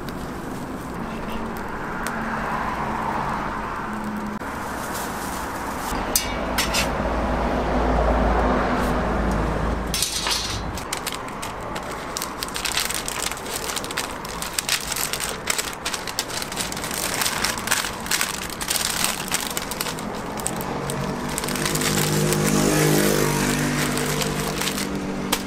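Paper sandwich wrapper crinkling and rustling with many small sharp crackles as a toast is folded into it by hand, starting about ten seconds in. Before that there is a steady low background rumble, and near the end a low pitched hum joins in.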